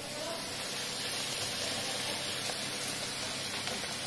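Spinach puris deep-frying in hot oil: a steady sizzle.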